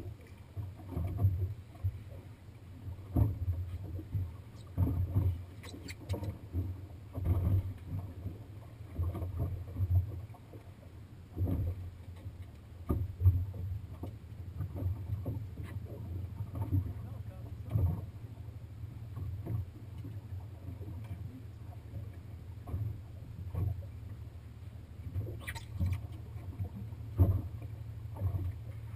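Small waves slapping against the hull of a small boat, in irregular low thumps about a second apart over a steady low rumble.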